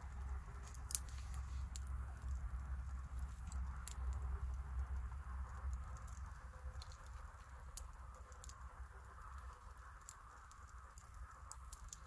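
A knife cutting grilled meat on a plastic cutting board: scattered small clicks and scrapes, the sharpest about a second in, over a low steady rumble.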